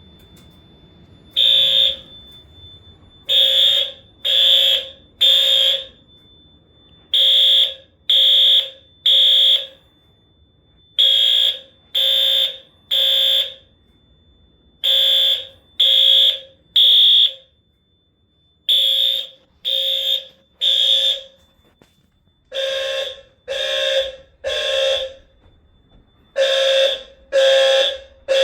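Fire alarm horns sounding the temporal-3 evacuation pattern: three half-second blasts, a pause, then three more, over and over, with a low tone and a high tone sounding together. A faint steady high tone carries on between the blasts.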